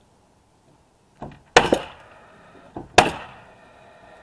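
Framing nailer firing twice, about a second and a half apart, driving nails through OSB sheathing into the wall framing. Each shot is a sharp bang with a short ring, just after a fainter click.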